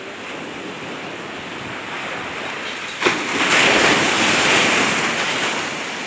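Sea waves washing onto the shore in a steady rush of surf, swelling into a louder breaking wave about halfway through that dies back over the next two seconds.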